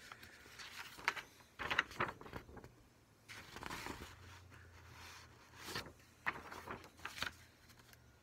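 A sheet of printer paper being handled, rustling and crackling in several short, irregular bursts as it is lifted, held up and lowered.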